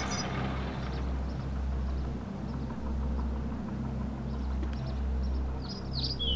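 Steady low rumble with a few birds chirping near the end.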